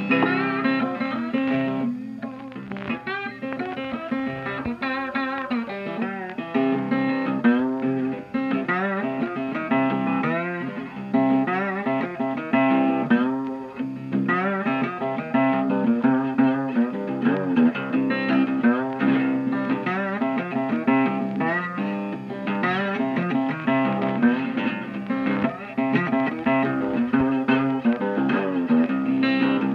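Background music led by guitar, with plucked and bent notes in a blues style.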